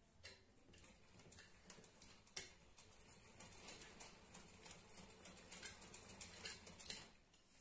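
Faint, irregular clicks and ticks of hands working cushion fabric at a hand-crank sewing machine, with a slightly louder click about two and a half seconds in and another near the end.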